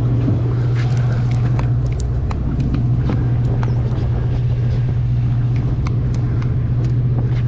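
Steady low drone of a sportfishing boat's engine, with scattered clicks and knocks from a conventional fishing reel being cranked and handled as line is wound in on a hooked bluefin tuna.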